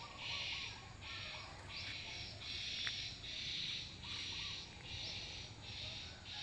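Insects buzzing in an even, pulsing rhythm, roughly one high hissing pulse a second.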